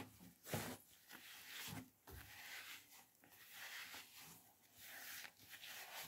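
Drying glove rubbing over a wet cat's fur: faint, repeated swishing strokes, about one a second.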